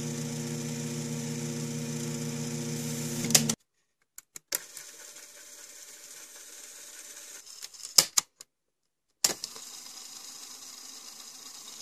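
Cassette tape mechanism's small DC motor running with a steady whir, heard in three short stretches separated by brief silences. Each stretch ends with a sharp mechanical click or two from the transport's keys and levers.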